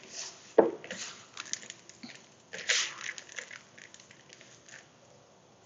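Fingers rubbing crumble topping mixture in a large mixing bowl: scattered gritty rustles and crunches, with louder knocks or scrapes about half a second in and again near three seconds, tailing off near the end.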